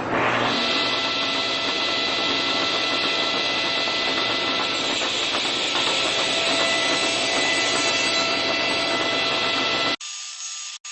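An electric power tool's motor spinning up and running steadily, a whine with several steady tones over a rushing hiss, then stopping abruptly about ten seconds in.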